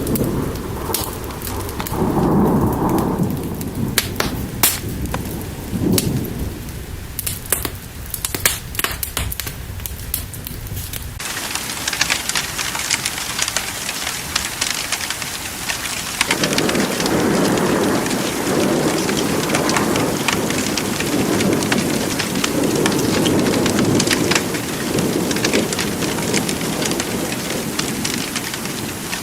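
Rain falling steadily with rolling thunder, crossed by sharp drip-like clicks in the first part. About a third of the way in the sound switches abruptly to a denser, even rain hiss, and the thunder rumbles again in the second half.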